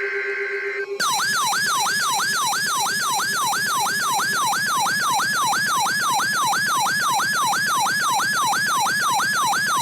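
Weather radio's electronic siren alert sounding for an incoming tornado warning: a loud, fast, repeating wail that starts about a second in and sweeps sharply up and then down about three times a second.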